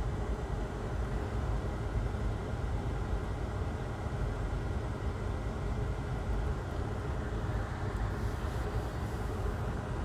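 Steady low rumbling hum with a faint high tone, the kind of noise a bench fan or blower makes.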